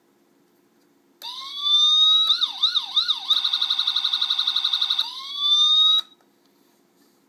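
Electronic police siren from a diecast police car model's sound module, switched on by a button press. A rising wail, three quick up-and-down yelps, about two seconds of a rapid warble, then another rising wail that cuts off suddenly.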